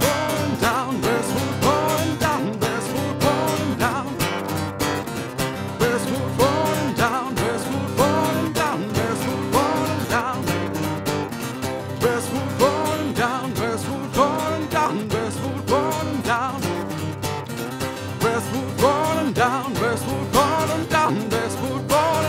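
Live acoustic guitar music: a stretch without lyrics, steady chords under a melody line that bends up and down in pitch.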